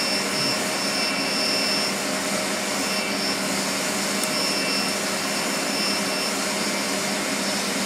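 Steady whooshing machine drone with a faint high whine held on top, unchanging throughout.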